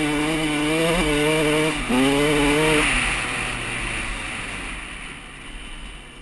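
KTM 150 SX single-cylinder two-stroke dirt bike engine pulling under throttle, with a brief lift about two seconds in. It then winds down and quietens as the throttle is rolled off near the end.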